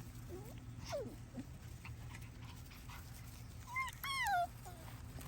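Young puppies whimpering: faint falling whines early on, then about four seconds in a short high whine followed by a louder, longer one that slides down in pitch.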